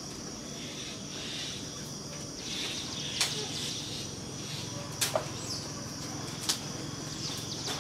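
Woodland ambience with insects chirring steadily and a low hum underneath, broken by a few sharp clicks: one about three seconds in, a quick pair about five seconds in, and another a second and a half later.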